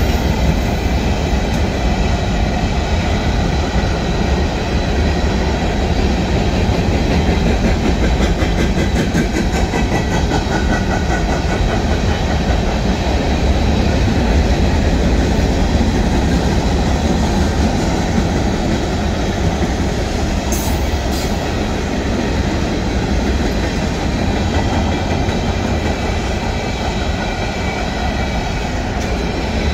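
Freight cars of a Union Pacific mixed freight train, mostly covered hoppers and tank cars, rolling steadily past at close range: the continuous noise of steel wheels on the rails, strongest in the low end.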